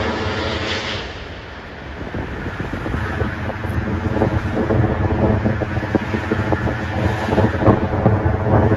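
Jet airliner roar that cuts off about a second in. Then the four jet engines of an Airbus A380 on final approach come in as a low rumble growing steadily louder, with wind buffeting the microphone.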